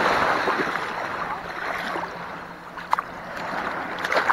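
Shallow seawater sloshing and splashing around a hooked ray flapping at the surface, with two sharp clicks, one about three seconds in and one at the end.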